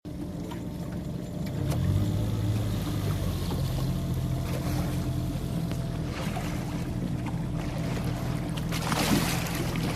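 A fishing boat's engine running steadily, picking up a little about a couple of seconds in, with brief rushes of noise about six and nine seconds in.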